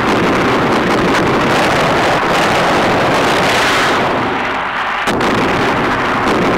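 Film sound effects of explosions, running together into loud, continuous noise, with a sharp crack about five seconds in.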